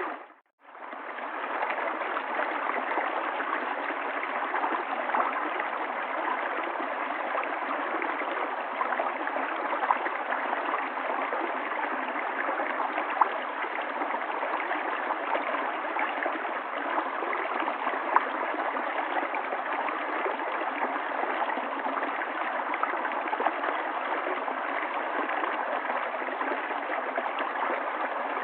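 River water flowing and rushing steadily. Right at the start it drops out for about half a second and fades back in.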